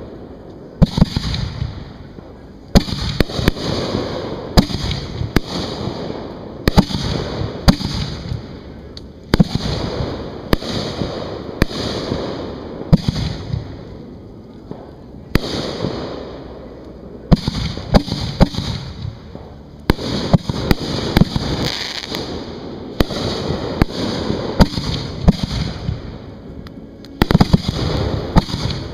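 Fireworks display heard at close range from beside the firing racks: aerial shells going off in a rapid string of loud bangs, often several a second, with rumbling echo between them. The bangs ease off in a short lull about halfway through.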